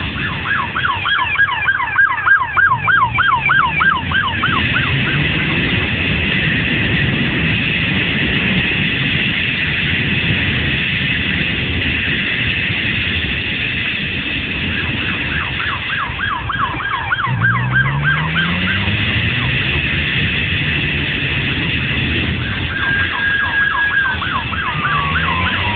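Police siren in a fast yelp, sounding in three bursts over steady vehicle and road noise, with an engine whose pitch climbs as the vehicle accelerates; near the end the siren holds one tone briefly and then falls.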